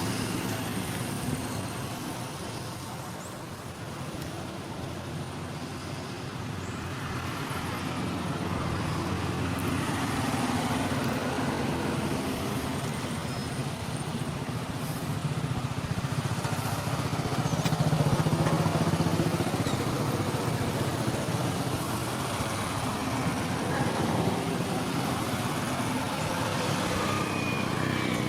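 Motor vehicle engines running steadily, swelling and fading as traffic passes.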